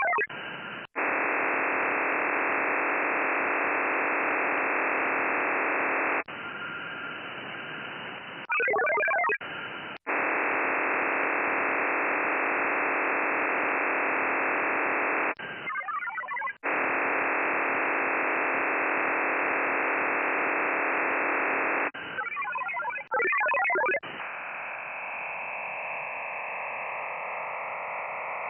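VARA HF soundcard modem audio during a Winlink connection attempt: three long hiss-like data bursts of about five seconds each, separated by shorter warbling multi-tone bursts. Near the end comes a fainter hiss with a slowly rising tone as the link to the other station is made.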